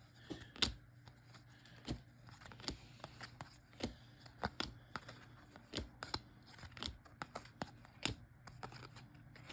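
Trading cards being handled and sorted by hand: irregular light clicks and taps of card stock, about one or two a second.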